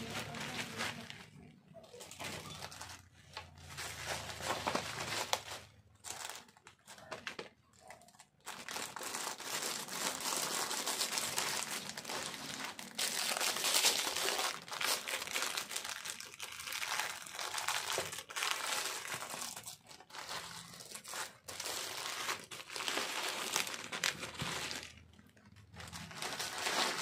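Plastic bubble wrap and a plastic mailer bag crinkling and rustling as they are handled and unwrapped by hand, in irregular spells with short pauses between them.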